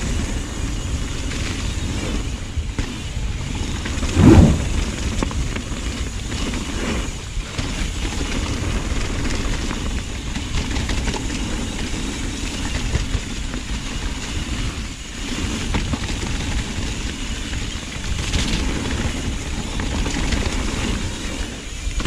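Trek Remedy mountain bike ridden down a wet trail, heard close up: a steady rumble of wind and tyres with the bike rattling, and one hard thud about four seconds in.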